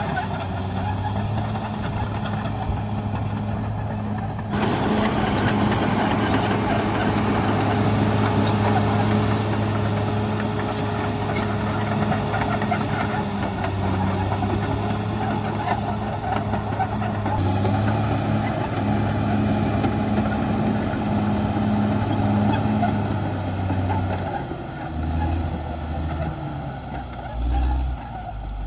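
Caterpillar D6R XL bulldozer's diesel engine running steadily, getting louder and rougher from about four seconds in to about seventeen seconds. Near the end the engine note wavers and shifts.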